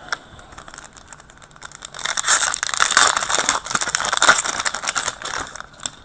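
Crinkling and rustling of a trading-card pack's foil wrapper as it is handled and torn open. The dense crackle starts about two seconds in and dies away shortly before the end.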